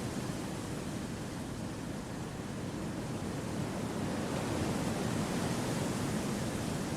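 Wind blowing through forest trees: a steady, low rushing that swells a little around the middle.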